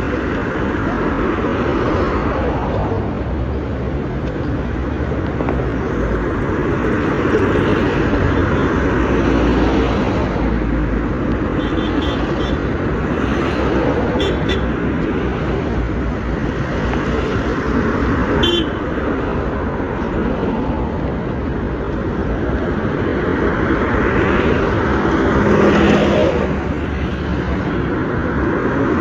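Steady road traffic noise from passing vehicles, with a few short horn toots in the middle.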